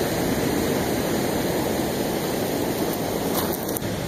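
Steady rushing noise of ocean surf on a sand-and-pebble beach, with a few faint clicks near the end.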